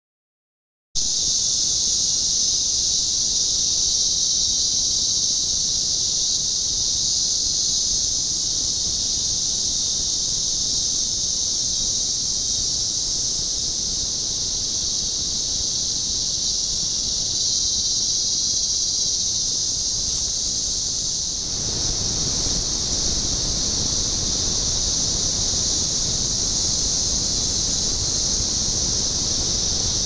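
Rainforest insect chorus: a loud, steady high-pitched drone starting about a second in, with low background noise that grows louder about 21 seconds in.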